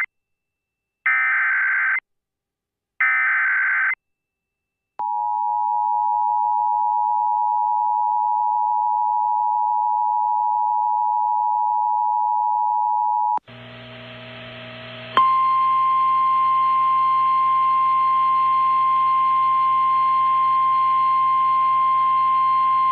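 Emergency Alert System signals: two short screeching SAME data bursts of the digital header, then about eight seconds of the steady two-tone EAS attention signal. After a brief gap of radio hiss and hum, NOAA Weather Radio's single-pitch warning alarm tone sounds steadily over the hiss, announcing a warning.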